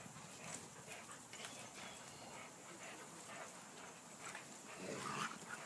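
Dogs tugging and biting at a fallen tree's leafy branches: faint, scattered rustling and crackling of leaves and twigs, a little louder near the end.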